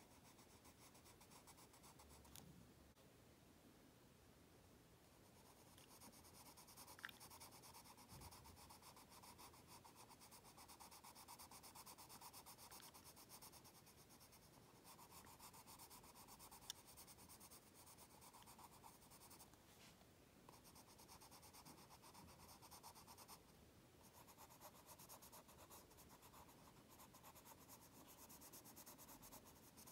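Green coloured pencil scratching faintly across an index card in a run of short shading strokes, colouring in a leaf. The scratching is lighter for the first few seconds and fuller from about five seconds in.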